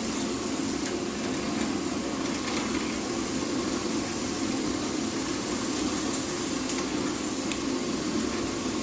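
Horizontal continuous band sealer running with a steady mechanical whir from its drive motor and cooling fan.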